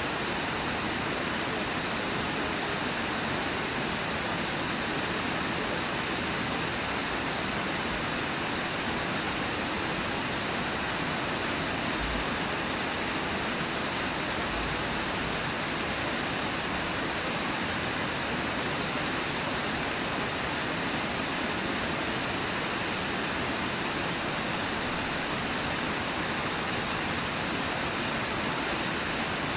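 Steady rush of Brooks Falls: the river pouring over the falls' lip and churning into whitewater, an even, unbroken roar of water.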